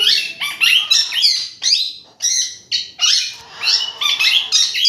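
Baby rose-ringed parakeets giving rapid, harsh squawking calls, several a second and overlapping, with brief pauses.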